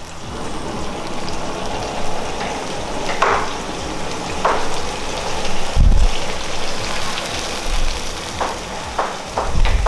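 Food sizzling steadily in a steel wok over a gas flame, with several sharp clinks of a metal spatula on the wok, coming more often near the end, and a low thump about six seconds in.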